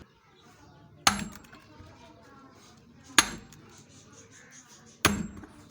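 A big hammer striking wood three times, evenly spaced about two seconds apart, each blow a sharp knock with a short ringing tail.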